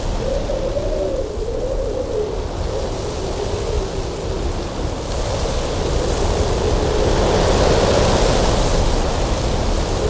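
Strong cold winter wind blowing over a mountain pass, with a deep rumble and a wavering whistle. A gust builds about six seconds in, its hiss rising to a peak near eight seconds before easing.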